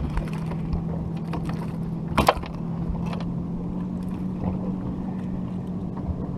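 Boat motor running with a steady low hum that climbs slightly in pitch. Scattered clicks and knocks, with one brief loud noisy burst about two seconds in.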